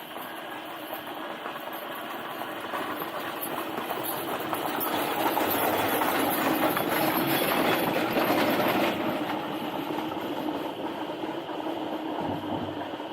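E-Bycco EB9 all-wheel-drive e-bike under way: a steady noise of riding, growing louder over the first five seconds as it picks up speed.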